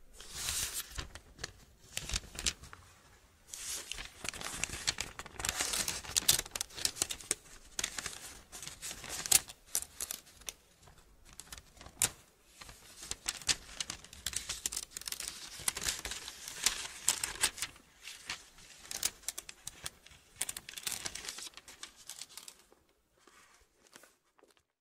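Irregular crinkling and rustling like paper being handled, full of sharp crackles, thinning out and stopping near the end.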